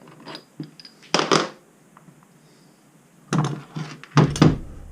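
Several short knocks and scrapes from handling the steel parts of a milling vise, one about a second in and a quick cluster near the end, the last two the loudest.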